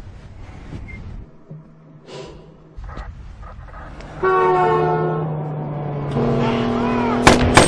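After a quieter stretch with a few soft thuds, a loud, sustained horn blast with a deep, many-toned chord comes in about four seconds in and holds, changing pitch about six seconds in. Near the end, two sharp gunshots sound a fraction of a second apart.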